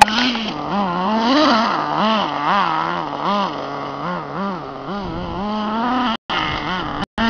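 A motor vehicle's engine revving up and down over and over, its pitch rising and falling about twice a second, as when driven over rough ground. The sound drops out briefly twice near the end.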